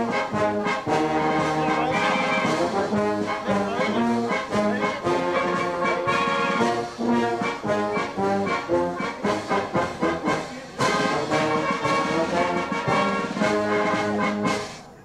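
Wind band of trumpets, flute and tubas playing a piece of music, with a short break a little past the middle; the sound drops away at the end.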